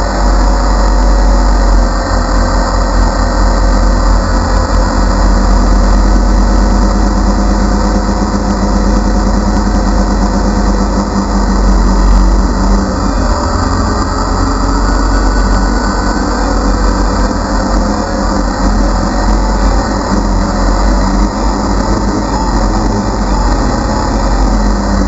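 DJI Phantom quadcopter's electric motors and propellers whirring steadily in flight, heard up close through the GoPro mounted on it, with a heavy low rumble of prop wash and wind buffeting the microphone.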